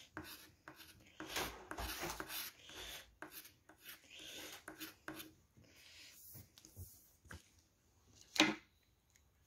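Hand rubbing and scraping over the coated play area of a paper lottery scratch card on a wooden table, a run of short faint strokes that thins out after about five seconds. One louder brief rustle comes near the end as the card is handled.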